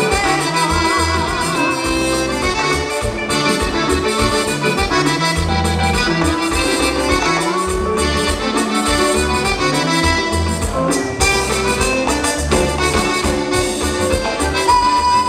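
Live band playing an instrumental passage led by accordion, over a pulsing bass line with a steady dance beat.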